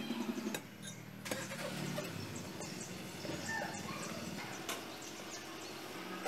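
Eggs being cracked into a glass bowl of flour, then a fork stirring and beating the batter, with sharp clinks and taps against the glass, over a steady low hum.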